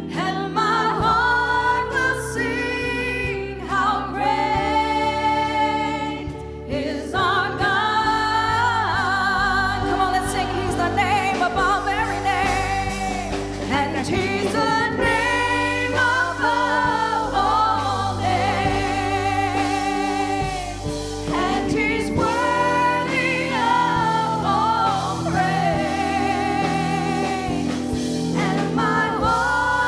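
Gospel worship music: singers with vibrato over sustained keyboard chords and a bass line.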